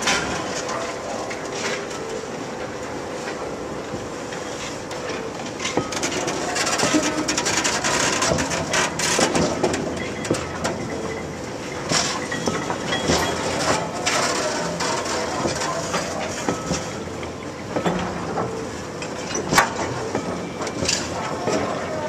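Slag ladle wagons rolling slowly on rails, their wheels, bogies and couplings clanking and knocking irregularly, with short squeals from the wheels. The sound is loudest in the middle.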